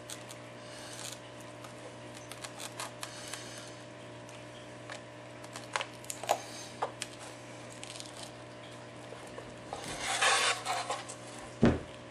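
Flat pry tool scraping and clicking along the edge of an iPad 4's glass digitizer, breaking the adhesive loose: scattered small clicks and short scrapes, then a louder scrape about ten seconds in and a dull knock just after.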